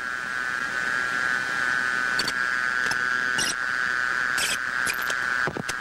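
Steady high-pitched whine on the aircraft radio channel, with a few short crackles of static over it.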